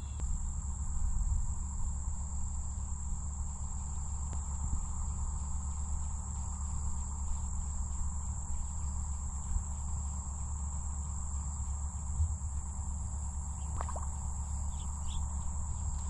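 Insects trilling in one steady high-pitched tone, over a low steady rumble.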